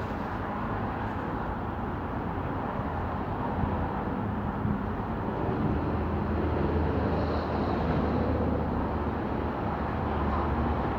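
Steady rumble of a vehicle engine with outdoor traffic noise, the low hum growing louder about halfway through.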